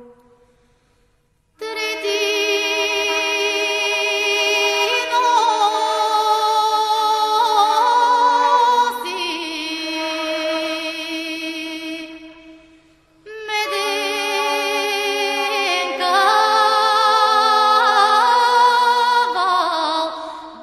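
Background music: several voices sing long held notes with vibrato, without instruments. The singing begins about a second and a half in, breaks off briefly near the middle, then resumes.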